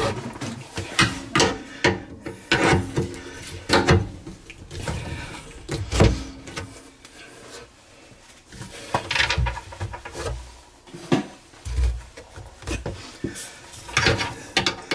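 Irregular knocks, clunks and scraping of hard parts being handled while a garbage disposal is fitted and locked into its sink mount.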